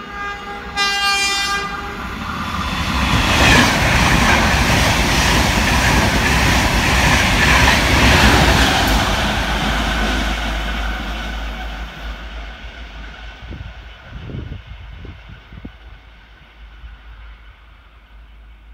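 Irish Rail 201 class diesel locomotive hauling a Mark 4 coach set: one short horn blast near the start, then the engine and the wheels on the rails swell to a loud peak as it runs through the station, and fade away as it recedes.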